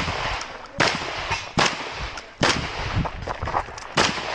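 Competition shotgun firing a string of loud shots, each with a short echo. Three shots come about 0.8 s apart in the first two and a half seconds, then one more after a pause of about a second and a half.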